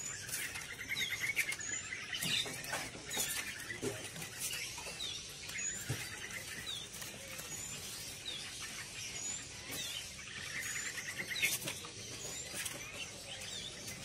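Caged songbirds chirping: short high chirps repeated about once a second, with a rattling trill about a second in and another around eleven seconds.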